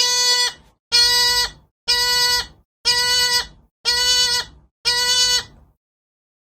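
Bushbaby (galago) calling: a series of six short, steady-pitched calls, about one a second.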